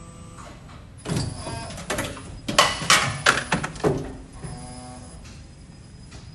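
Older injection molding machine, retrofitted with a servo drive, running through a cycle: a steady hum with a run of loud metallic clanks and knocks between about one and four seconds in.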